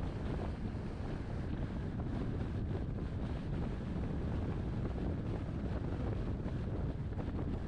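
Steady wind noise on the microphone over the low, even rumble of a car driving along.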